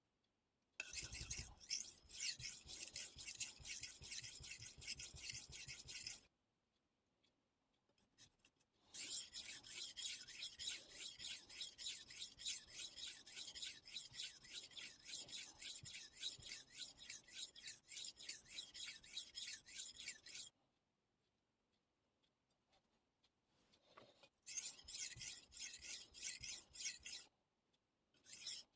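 Kitchen knife blade being worked back and forth on a whetstone: quick, even, rasping strokes in three runs, the longest about eleven seconds, with short pauses between them.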